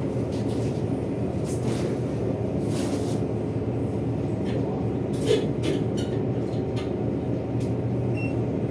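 Washing machine running with a steady motor hum and rumble, with scattered light clicks and rattles over it.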